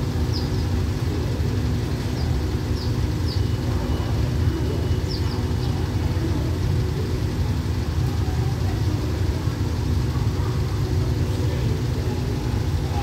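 Steady low rumble of a standing passenger train's diesel engines idling, with a few short high bird chirps over it in the first few seconds.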